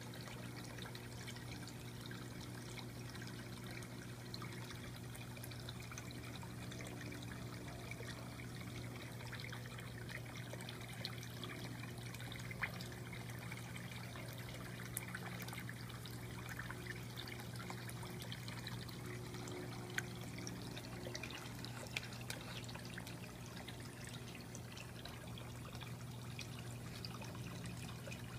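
Tetra Pond filter fountain pouring and trickling steadily into a turtle pool, over a low steady hum, with a few faint ticks.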